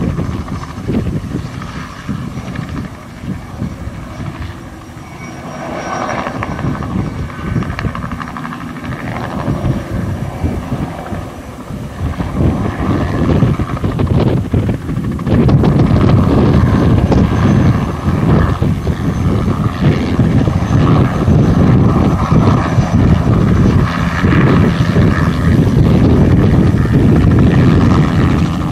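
Bell 206B-3 JetRanger III helicopter with its Allison 250 turboshaft, flying low spraying passes: rotor chop with a faint high turbine whine. It fades a few seconds in as it moves away, builds again, and about halfway through it comes in close and stays loud.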